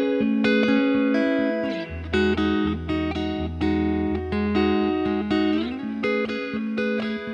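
Home-built Telecaster Thinline electric guitar played clean through a Fender Tweed Deluxe 5E3 and a Laney Lionheart L5 amp, with a Boss Blues Driver as a clean boost and a light Boss DD200 delay. Picked chords and single notes, with a slide in pitch about two seconds in and again near six seconds, and a low note ringing under the middle part.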